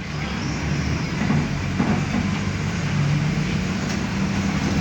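Mercedes-Benz OF-1519 Bluetec 5 bus's diesel engine running steadily under way over road noise. The engine note rises slightly about two seconds in, then holds.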